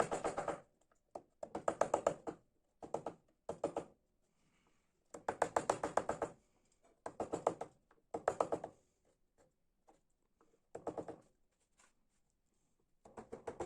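Wood being carved in short bursts of rapid tapping, about nine bursts with pauses between, each under a second to about a second long, on an ash panel.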